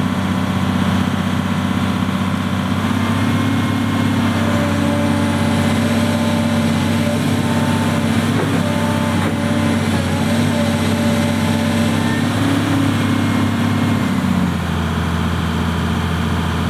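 Volvo EC210B excavator's diesel engine running, pulling harder with a steady hydraulic whine from about three seconds in as the boom is raised and swung, then settling back to a lower, even note near the end.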